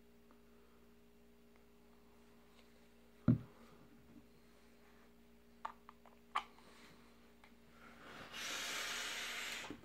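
A faint steady hum with a low thump and a few short clicks, then near the end a breathy hiss of about two seconds that cuts off sharply: a hit of vapour taken off a freshly built kanthal coil on a rebuildable atomizer fired at 83 watts.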